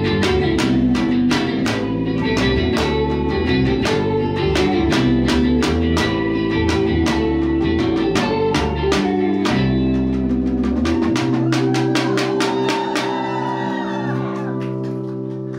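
Live rock band with electric guitars, bass guitar and drums playing, with a steady run of cymbal hits. About eleven seconds in, the bass and drums stop and a final chord rings on, fading out near the end.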